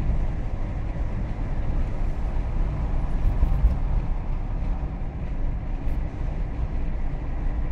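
Steady low rumble of a car driving at highway speed, heard from inside the cabin: engine and tyre noise on the road surface.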